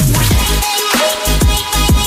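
Electronic dance music with a fast drum-and-bass beat and falling bass sweeps.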